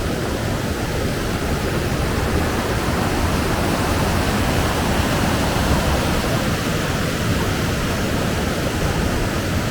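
Waterfall cascade rushing in a steady, unbroken roar of water, heard from a rock in the middle of the falls.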